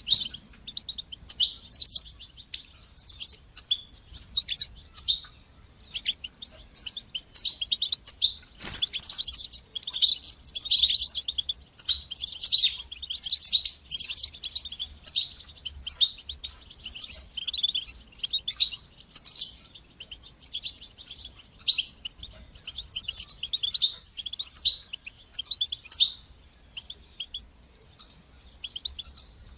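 European goldfinch singing: high twittering, chattering phrases about a second long with short pauses between them, one after another. A single faint knock about nine seconds in.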